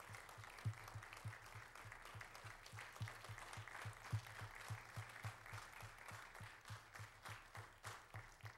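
Faint applause from a congregation: many hands clapping in a dense, steady patter.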